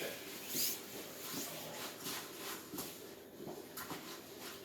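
Irregular rubbing and scraping strokes as a toy RC car is scrubbed clean.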